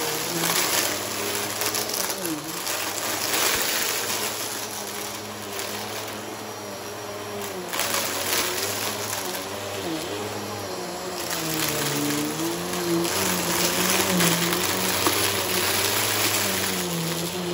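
Bissell PowerForce upright vacuum running and sucking up a mix of confetti and glitter from a rug, the debris rattling and crunching up into the clear canister. Its motor hum wavers up and down in pitch as the head is pushed back and forth.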